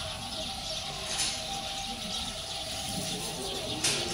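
Outdoor ambience: a steady background hiss with faint bird chirps, and two short sharp clicks, one about a second in and one near the end.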